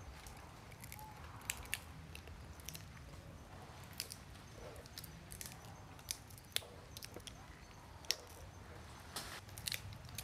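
Macaques cracking peanut shells and chewing: a dozen or so irregular, sharp cracks and crunches.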